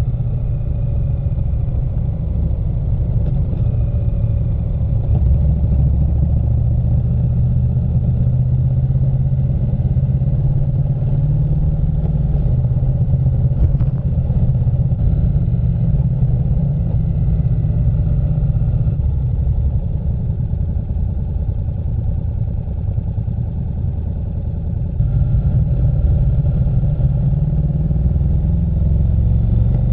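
Honda NC700X's parallel-twin engine running as the motorcycle rides along, under a heavy low wind rumble on the bike-mounted camera. It gets louder a little before the end.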